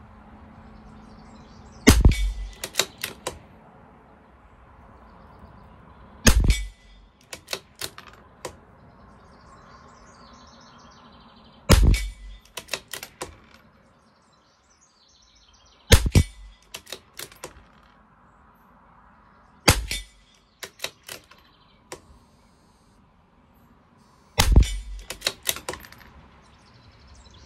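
CZ 457 LRP bolt-action .22 LR rifle firing six shots, about four to five seconds apart, each followed by a quick run of clicks as the bolt is worked to eject the case and chamber the next round. These are fouling shots, fired to condition the barrel before group testing.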